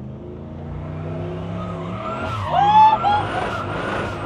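Turbocharged LS1 V8 in a 1983 Holden WB ute pulling hard in a drift, its note climbing steadily. About two and a half seconds in, the tyres break into a loud squeal as the car slides sideways, smoking the tyres.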